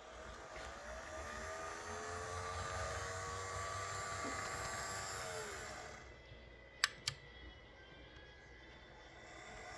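Electric motor and gearing of an HO-scale Proto 1000 Budd RDC model railcar whirring as it runs on DC, with a faint whine that sags in pitch as the sound fades about six seconds in. Two sharp clicks come about seven seconds in, then the whir builds again near the end.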